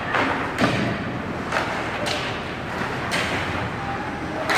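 Ice hockey play on the rink: a string of about six sharp knocks and cracks at uneven intervals, from the puck, sticks and players striking the boards and ice.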